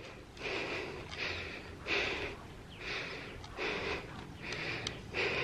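A woman breathing hard and fast, a heavy breath about every three quarters of a second: out of breath just after a workout.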